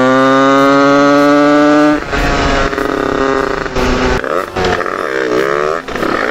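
Go-kart engine revving steadily higher under acceleration, then cutting back abruptly about two seconds in as the throttle comes off; after that it runs unevenly, its pitch rising and falling as the kart slows into a turn.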